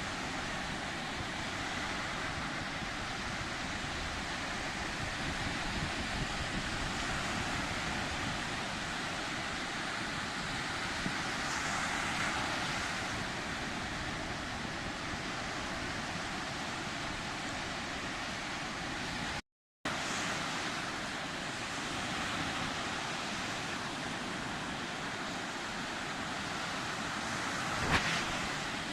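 Sea surf: a steady wash of waves, swelling a little about twelve seconds in and again near the end. The sound cuts out completely for a split second about two-thirds of the way through.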